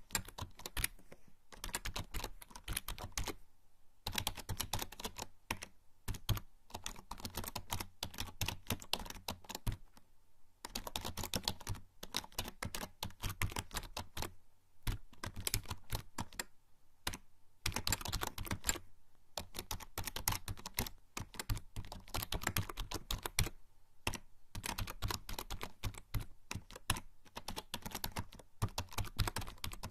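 Typing on a membrane computer keyboard: fast runs of key presses lasting a few seconds each, broken by short pauses.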